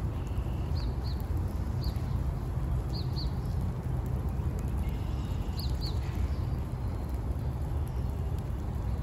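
A bird giving short high chirps, several in quick pairs, scattered over a steady low rumble.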